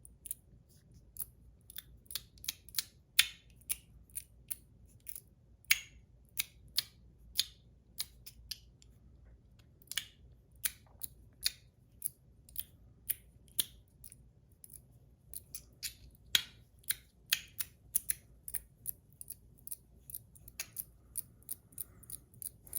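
A 42 Cosmo Last Mermaid XXL magnetic slider fidget being slid back and forth by hand, clicking sharply in an uneven run of two or three clicks a second.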